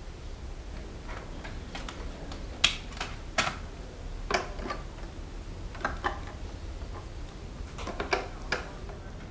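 Plastic clicks and clacks of a portable CD stereo's buttons and controls being pressed and handled, in scattered groups of a few clicks each, the loudest about two and a half seconds in, over a faint low hum.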